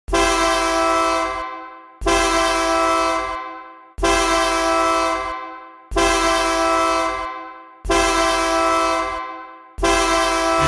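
Goal horn blasting six times, about every two seconds, each blast holding one steady pitch that starts at full strength and fades away over about a second and a half.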